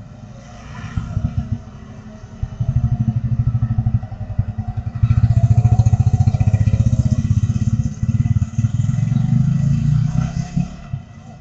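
Small motorcycle engines putting past close by, one after another, followed by a small pickup truck going by; the engine noise is loudest about halfway through and fades near the end. Heard through a CCTV camera's microphone.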